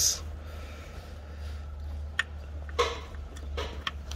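A few light, scattered plastic clicks and taps as gloved hands handle a camshaft position sensor and its electrical connector, over a steady low hum.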